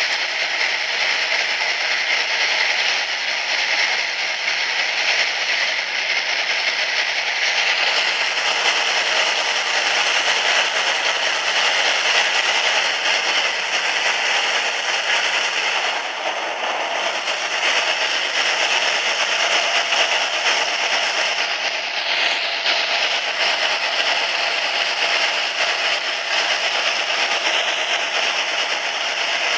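Train running at speed through a rail tunnel: a steady, loud rushing noise of wheels on rails and moving air, closed in by the tunnel walls.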